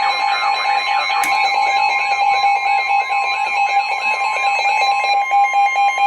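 Electronic emergency alert tones: steady high alert tones sounding together with a warbling tone that sweeps up and down a few times a second, with a couple of short clicks.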